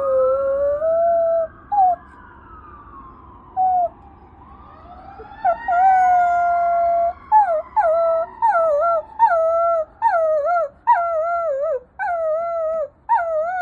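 A dog howling along to an ambulance siren: long drawn-out howls at first, then from about halfway a run of short wavering howls, about two a second. The siren's rising and falling wail is faint behind it.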